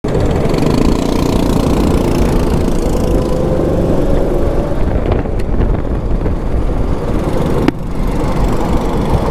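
Racing go-kart's engine running hard at speed, heard from on board the kart, its pitch rising slowly in the middle as the kart accelerates. A brief click and dip in loudness near the end.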